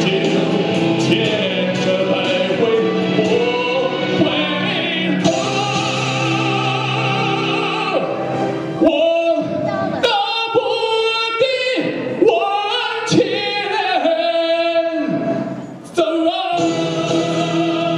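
A man singing a Chinese ballad live into a handheld microphone over instrumental accompaniment. The accompaniment carries the first half, then the voice comes in strongly about halfway through in long, wavering held notes. There is a short drop in level near the end before the music swells again.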